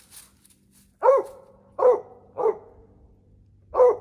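Mountain Cur barking four times, three in quick succession about a second in and a fourth near the end: a squirrel dog barking treed at a squirrel it has run up a tree.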